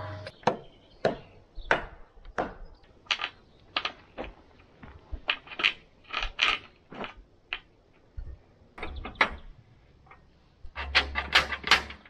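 Irregular sharp knocks and clicks of hand work on steel sawmill rails, roughly two a second, with two short pauses and a quick run of knocks near the end.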